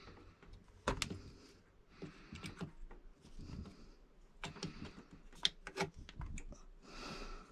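Faint, irregular metallic clicks and taps of a folding multi-tool being handled and worked on a hose clamp, fitting the raw-water intake hose back onto the engine's impeller housing.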